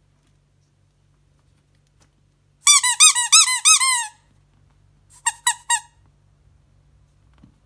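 A quick run of about eight high, arching squeaks, then after a pause four shorter squeaks.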